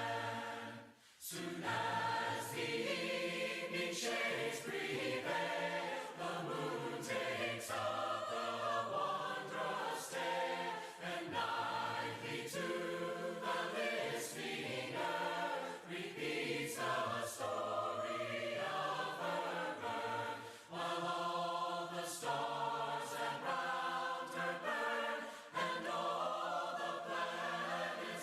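A church congregation singing a hymn a cappella, many voices together on held notes. There is a brief break between phrases about a second in.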